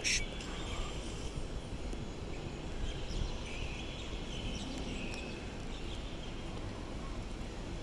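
Open-air airport ambience: a steady low rumble of distant aircraft and wind, with faint high bird chirps a few seconds in and a brief high burst right at the start.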